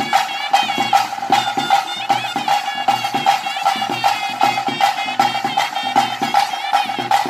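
Bhoota kola ritual music: drums beating about three to four strokes a second under a high, wavering melody and a steady held drone.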